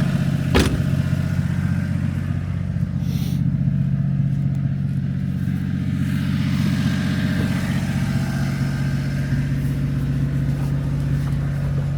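Honda Acty's small three-cylinder engine running steadily, with a single sharp click about half a second in.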